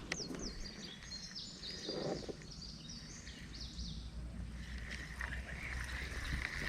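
A songbird singing a quick run of sliding, chirping notes for the first few seconds, over a constant low rumble. About five seconds in a steady hiss sets in.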